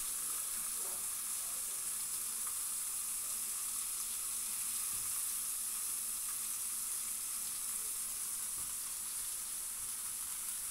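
Seasoned beef short ribs searing in a super hot cast-iron skillet: a steady, even sizzle.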